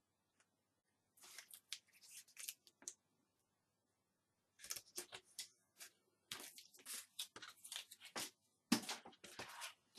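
Faint rustling and scraping of paper tape strips being handled and pressed down by hand onto chipboard, in short irregular bursts.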